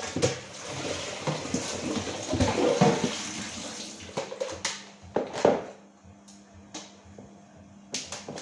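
Water rushing for about four seconds, then stopping, with sharp knocks and clatters of household items throughout over a steady low hum.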